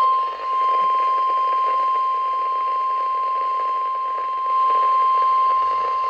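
A single steady alert tone of about 1 kHz held without a break over radio hiss: the 1050 Hz warning alarm tone of NOAA Weather Radio that opens an Emergency Alert System severe thunderstorm warning.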